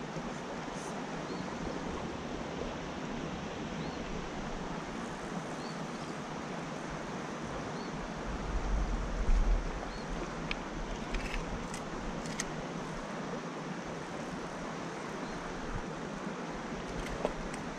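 Creek water rushing steadily over a shallow rocky riffle. About halfway through there is a brief low rumble on the microphone, and a few faint clicks follow.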